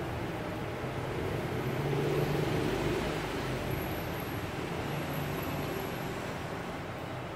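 Steady background noise with a low engine-like hum that swells a little about two seconds in and then eases off.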